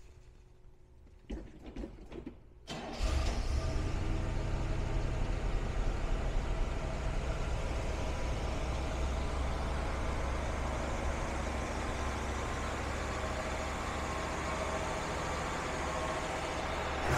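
The 1966 Oldsmobile 98's 425 cubic-inch V8 cold-started: a short spell of starter cranking, then the engine catches about three seconds in and settles into a steady idle.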